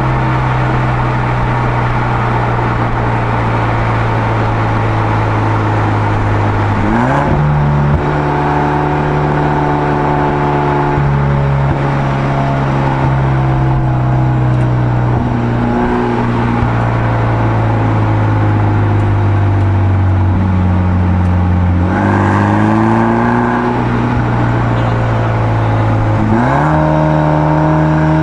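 Exhaust note of a BMW F30 320i's 2.0-litre turbocharged four-cylinder through an aftermarket Aura end muffler, heard at the tailpipe while driving. The note falls slowly as the car slows and jumps up in pitch as it is shifted down through the gears, about seven seconds in and again near the end.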